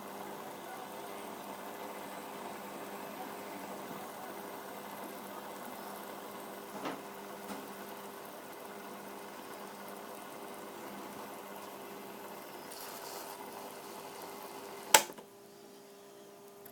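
Water boiling and bubbling around a heating-element wire fed from a transformer, with a steady low hum underneath. A sharp click comes near the end, after which the bubbling stops and only the hum remains.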